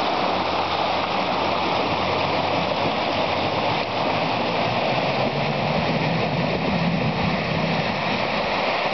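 Mercedes G300 off-roader driving through a deep rut of muddy water, its wheels churning up a steady wash of sloshing water over the low drone of its engine under load. The engine note firms up a little about halfway through.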